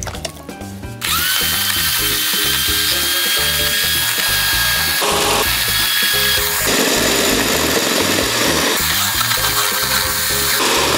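Electric hand mixer starting about a second in and then running steadily with a high motor whine, its twin beaters whipping egg whites in a bowl.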